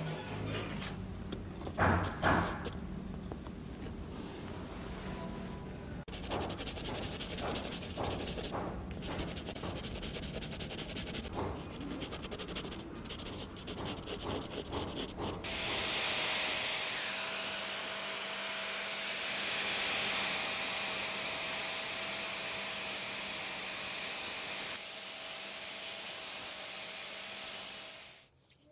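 Workshop sounds: handling knocks and a pencil rubbing on paper. About halfway through, a small motor tool starts up and runs steadily with a hiss and a constant whine, then cuts off suddenly near the end.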